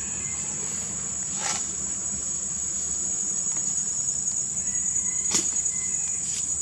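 Insects droning steadily at one high pitch, with two sharp clicks, one about a second and a half in and another about five seconds in.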